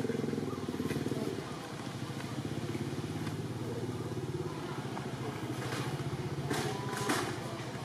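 A motor engine running steadily at a constant pitch, with a few short clicks near the end.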